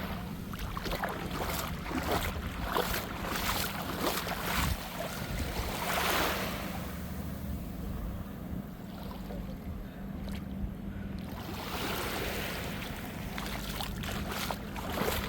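Waves washing onto a sandy beach, swelling twice, with wind on the microphone and a steady low hum underneath.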